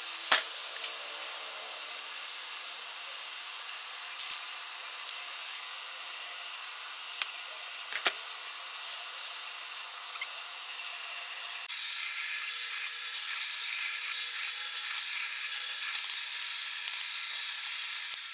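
Steady hiss of shop noise with a few sharp knocks, changing abruptly about two-thirds of the way through to the brighter, even sound of a drill press boring into a wooden block.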